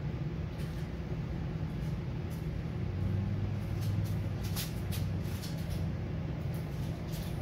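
Steady low mechanical hum, with scattered short, high scratchy ticks and rustles, thickest in the middle.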